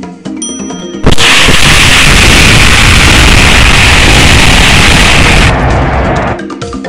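Explosion sound effect: a sudden loud blast about a second in that carries on as a dense rush of noise for about four seconds, then fades away as music comes back.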